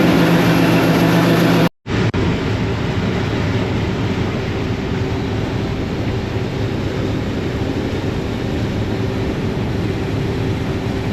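Heavy diesel engine running with a steady drone. About two seconds in the sound drops out for a moment and comes back as a smoother, more even engine drone.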